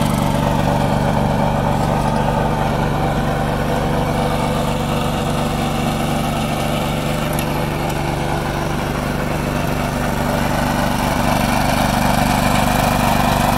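John Deere 185 Hydro riding lawn mower engine running steadily while the mower is driven.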